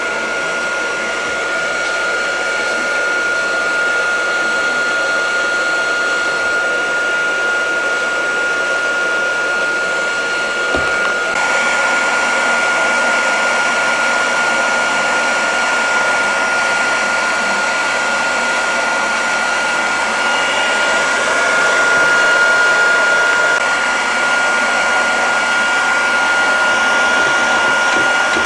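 Plastic welding machine's blower running steadily: a rushing air sound with a constant high whine, which gets a little louder and brighter about eleven seconds in.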